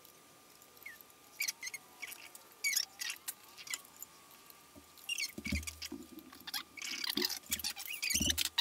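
Small clicks, ticks and squeaky scrapes of needle-nose pliers handling wires in a tube amp's metal chassis, with a few low bumps in the second half.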